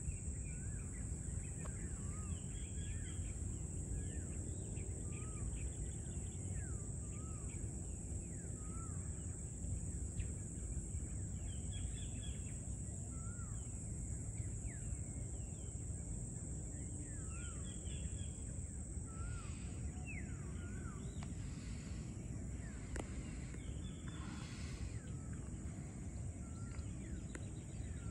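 Birds calling with many short, repeated up-and-down whistled notes, over a steady high-pitched insect drone and a low background rumble.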